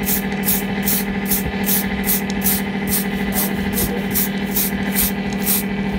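An engine running steadily, with a constant hum and a regular clatter about five times a second, like a slow-idling single-cylinder diesel.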